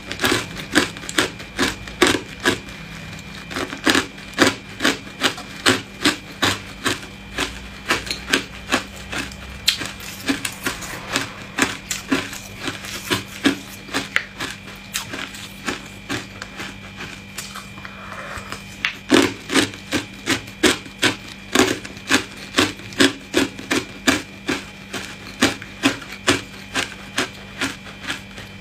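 Hard ice crunching in sharp, even strokes, about two a second, softer for a stretch a little past halfway.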